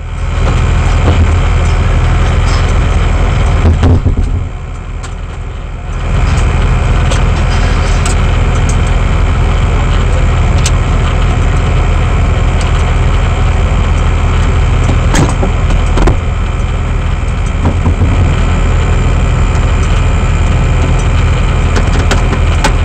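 Star Mazda race car engine idling steadily, loud and close to the onboard microphone, dipping briefly about four seconds in.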